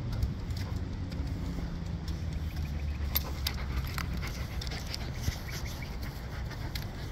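Boxer-type dog panting on a leashed walk, over a steady low rumble, with a few short sharp clicks.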